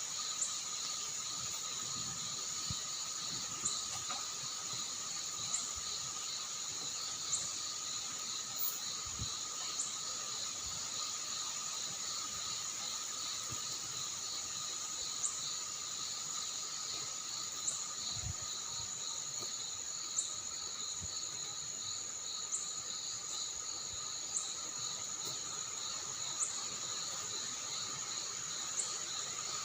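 A steady chorus of crickets and other insects, several tones trilling at once with one faintly pulsing. A short high chirp recurs every couple of seconds, and faint low thuds come now and then.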